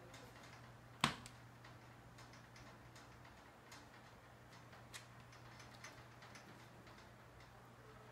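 Faint, scattered light ticks and clicks, with one sharp click about a second in, over a steady low hum.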